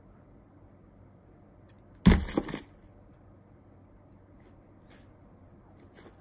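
A Seagate hard drive dropped onto an iPhone's cracked glass screen: one sharp, loud crack about two seconds in, then a brief clatter that dies away within about half a second. Faint handling clicks follow near the end as the drive is lifted.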